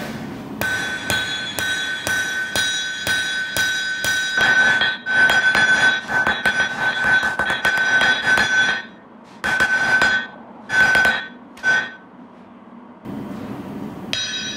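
Hand hammer striking a red-hot wakizashi blade on a steel anvil, a steady run of blows at about two or three a second with a high ringing tone from the anvil. Near the end come a few spaced single strikes, then a pause.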